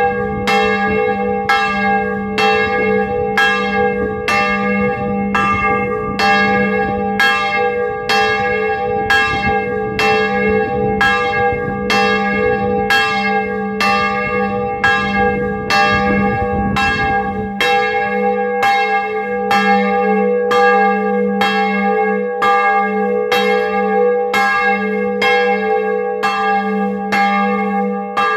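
A 1658 bronze church bell tuned to G-sharp (Sol#3), swinging and ringing, its clapper striking at a steady pace of a little more than one stroke a second, each stroke ringing on into the next. A low rumble underneath stops about two-thirds of the way through.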